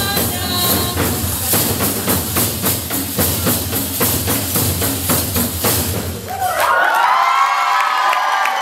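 Rwandan traditional drums beating a fast, dense rhythm that stops about six seconds in. Several voices then call out together in high, gliding tones as the dance ends.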